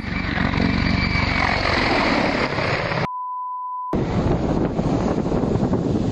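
Helicopter rotor and engine noise, close and loud. About three seconds in, it is cut out for under a second by a steady censor bleep.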